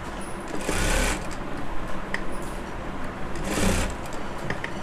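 Typical industrial single-needle lockstitch sewing machine stitching a sleeve hem, running slowly with two louder spurts, about a second in and again just before the end.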